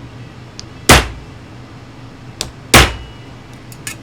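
Hammer blows on a rivet former, peening over a rivet on a toy train car's metal chassis set on a wooden block: two hard strikes about two seconds apart, with a lighter tap just before the second and a few small clicks near the end. Each blow flattens and mushrooms the rivet head to draw the joint snug.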